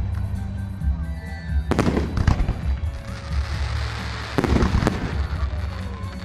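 Fireworks display: four sharp shell bursts, two close pairs about two seconds apart, with a spell of crackling between and after the second pair.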